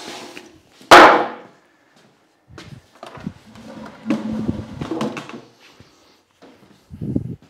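Knocks and scrapes of a softwood 2x4 frame being handled and set in place, with one sharp loud wooden knock about a second in and a shorter knock near the end.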